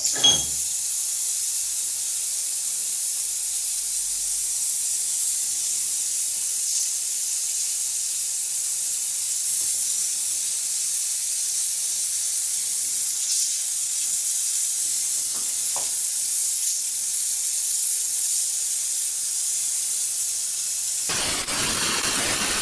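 Gas torch flame hissing steadily while it heats a steel joint for silver soldering, with solder wire fed into the flame. A louder rush lasts about two seconds near the end.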